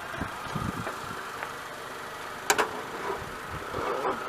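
Car engine idling steadily with a thin steady whine over it, for a jump-start of a flat battery. A few low thuds in the first second and two sharp clicks about two and a half seconds in.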